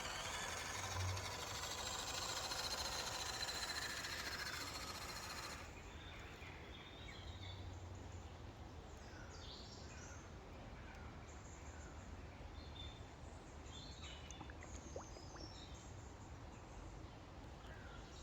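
A steady hiss of noise that cuts off suddenly about six seconds in, then quieter outdoor ambience with scattered short bird chirps.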